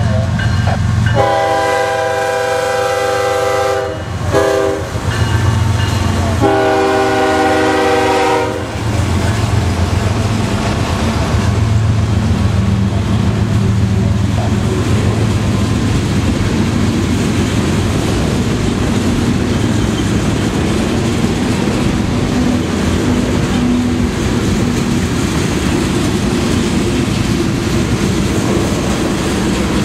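CSX Tropicana juice train led by two GE ES44AH locomotives sounding its horn for a grade crossing: a long blast, a short one, then a final long blast ending about nine seconds in. The locomotives then pass, and a long string of refrigerated boxcars rolls by in a steady, loud rumble of wheels on rail.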